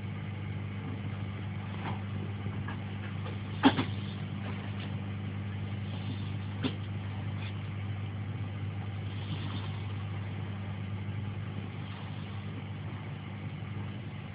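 Snoring, uploader-described as tremendous: a steady low rumbling drone that keeps going without a break, with two short clicks about four and seven seconds in.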